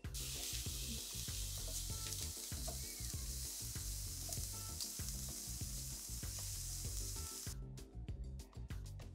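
Riced cauliflower and konjac rice sizzling loudly in a hot frying pan as they are poured in and stirred with a spatula. The sizzle cuts off suddenly near the end, leaving background music with a steady beat.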